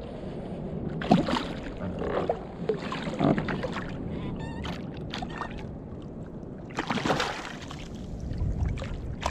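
Water splashing and sloshing beside a plastic kayak as a hooked fish is played and brought alongside, with a few sharper splashes scattered through.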